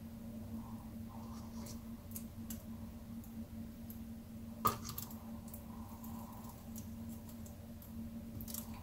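Handling noises of a small stretched canvas being lifted and tilted: scattered light clicks and taps, with one sharp knock about halfway through, over a steady low hum.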